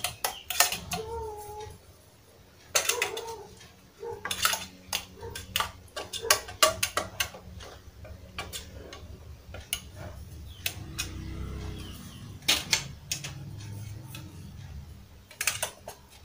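Metal spoon clinking and scraping against a small aluminium llanera as caramel is spread around its inside, in irregular light taps, with now and then the clink of a mould set down on the table.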